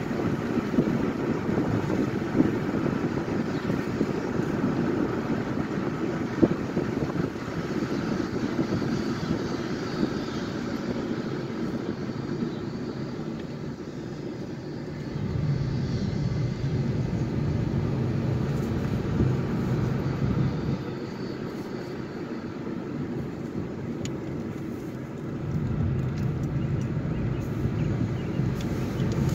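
A car driving, heard from inside the cabin: steady tyre and engine noise that grows quieter around the middle as the car slows for a sharp turn. The engine note then deepens and gets louder twice as the car picks up speed again.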